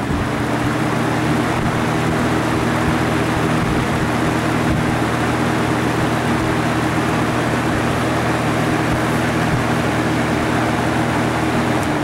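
Early-1990s Holmes box fan with a full-size McMillan motor, running on high. A steady motor hum with the rush of air from the blades comes up to speed in the first second, then holds level.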